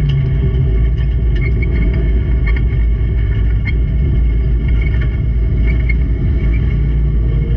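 Race car engine running under load, a loud, steady low rumble with no break.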